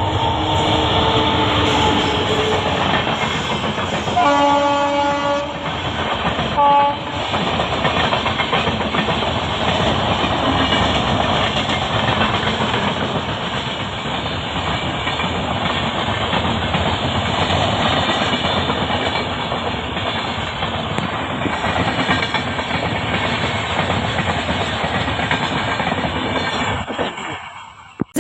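Indian Railways Cholan Superfast Express passing at speed. Its horn sounds a long blast about four seconds in and a short one soon after, over a steady rumble and clatter of the coaches' wheels on the rails that lasts over twenty seconds and then cuts off just before the end.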